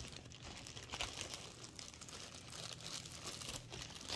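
Clear plastic zip-top bag crinkling and rustling in irregular crackles as small plastic toy figures are handled in it.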